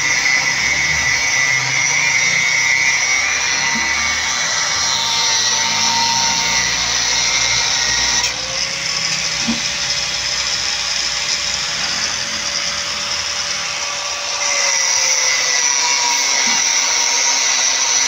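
Angle grinder with a cut-off disc cutting through steel rebar, a steady high-pitched whine. About eight seconds in it eases off the cut, runs quieter with a slightly higher steady whine for about six seconds, then bites into the steel again.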